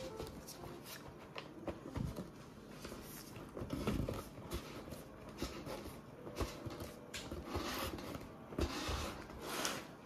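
A cardboard keyboard box being handled on a wooden tabletop: scattered knocks and taps as it is set down and moved, with cardboard scraping and rustling, the loudest rustles around the middle and just before the end.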